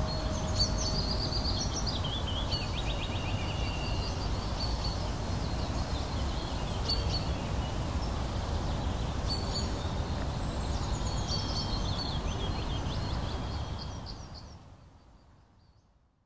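Outdoor ambience of a steady low rumble with birds chirping and twittering on and off. It fades out over the last two seconds or so.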